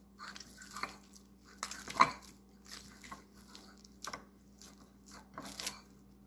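Hands kneading stiff atta dough in a ceramic plate, with a run of soft, irregular squishes and crackles as the knuckles press and fold it, and a sharper knock about two seconds in. The dough is still too stiff and has just had a little water worked in.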